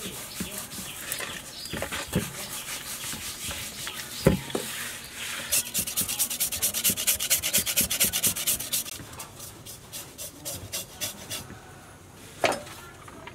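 Salt being rubbed and scraped over the skin of a large river fish in a metal basin to clean it. In the middle comes a run of quick, even scraping strokes, about five or six a second, from a knife blade drawn over the skin, with a couple of sharp knocks against the basin.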